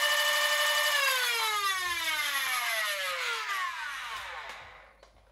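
Nerf Stryfe's flywheel motors whining at full speed, then, about a second in, winding down in a steadily falling whine until they stop.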